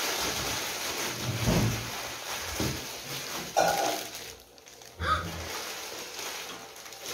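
Plastic packaging rustling and crinkling as it is handled and opened, with sudden sharper crackles about three and a half and five seconds in.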